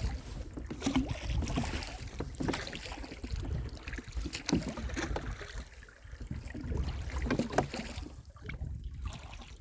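A small boat under way, with wind buffeting the microphone and water noise, and scattered light knocks and ticks. It gets quieter near the end.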